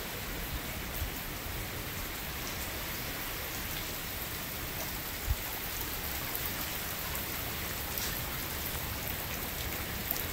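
Heavy tropical-storm rain falling steadily on a swimming pool and the surrounding foliage, a constant hiss. A single brief thump about halfway through.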